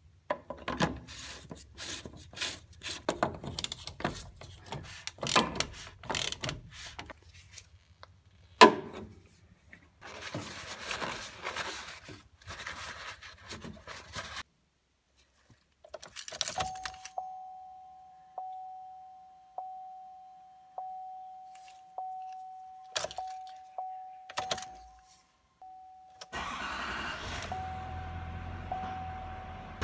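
Hands fitting and tightening the plastic fuel filter cover on a Duramax L5P pickup: irregular clicks and knocks, the loudest a sharp knock about nine seconds in. After a gap the truck's warning chime dings about every second and a half with the ignition on while the fuel system primes. Near the end the 6.6 L Duramax L5P V8 diesel cranks, starts and runs steadily.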